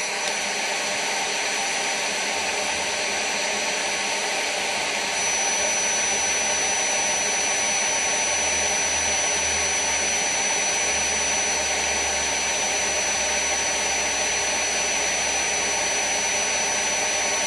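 Dyson V7 stick vacuum's motor running steadily on maximum power, a rush of air with a high whine, as it draws air through its aluminium extension wand into an airflow test box. The whine gets a little louder and stronger about five seconds in, then holds.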